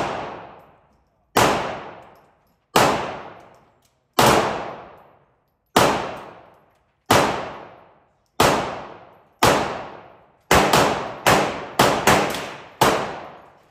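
9mm Glock pistol fired shot after shot, about every second and a half at first, then in quicker pairs and runs near the end. Each shot rings off in a long echo from the indoor range.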